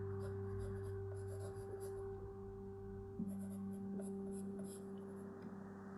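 Graphite pencil scratching on paper in quick, short clustered strokes as a drawing is shaded. Soft background music with long sustained notes plays underneath.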